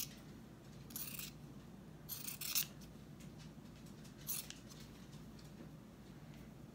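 Scissors snipping through felt, three separate cuts spread over the first four seconds or so.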